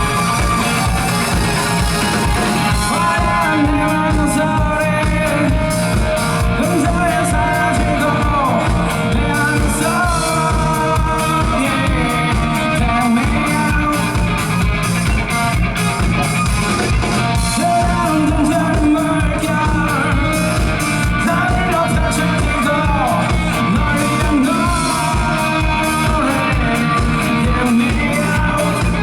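Live rock band playing loudly with a steady drum beat, a male singer's voice over it.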